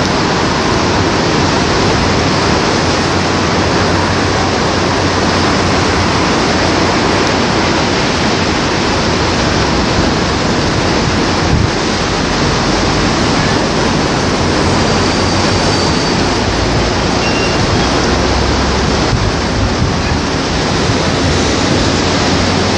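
A loud, steady roar of breaking sea surf and wind, unchanging throughout.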